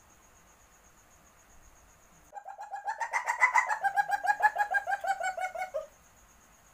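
A civet's mating call, given in heat: a rapid chattering run of pitched notes, about eight or nine a second. It starts about two seconds in, lasts about three and a half seconds, rises slightly in pitch, then sags and stops abruptly.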